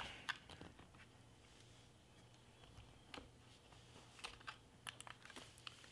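Faint, scattered plastic clicks and taps from handling a DJI Mavic Air's folding remote controller.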